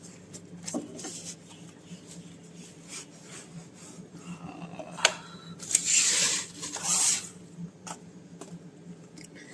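Packaging from a wireless microphone kit being handled and opened: rubbing and rustling with scattered clicks, and a sharp click about five seconds in. Two louder rustles come about six and seven seconds in.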